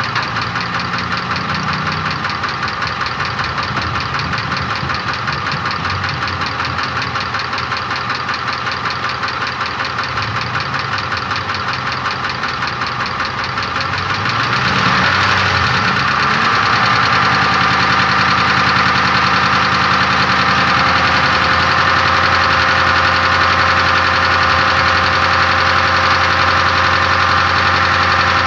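Ford 5.4-litre three-valve Triton V8 idling with a fast, even knock that has newly appeared, a fault whose cause the owner does not know. The sound gets louder about halfway through.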